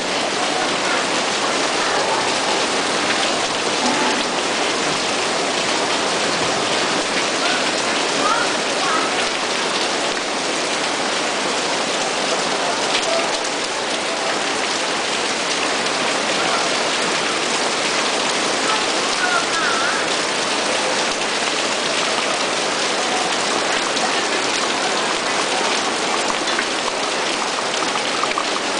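Heavy monsoon downpour: a steady, even hiss of rain falling on a tent canopy and a wet paved road.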